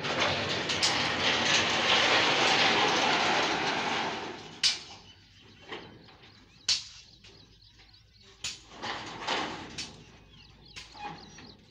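Steel frame of a folding solar-panel trolley being folded: a loud metal scraping for about four seconds, then several sharp metal clanks spaced a second or two apart.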